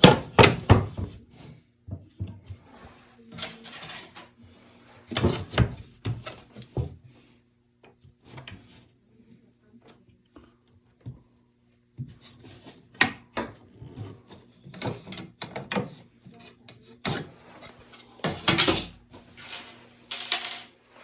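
Wooden knocks, taps and scrapes from a drawer front and spacer being handled and set against a cabinet. They come in scattered clusters, with the busiest about five, thirteen and eighteen seconds in.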